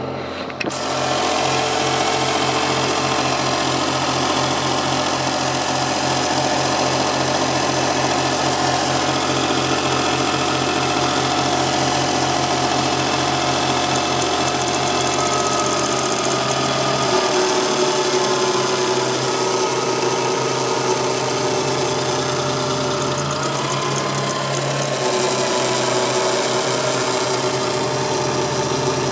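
Suzuki Cappuccino's small three-cylinder engine running steadily at idle, heard close up, with an even mechanical hum. Its low note shifts about two-thirds of the way through.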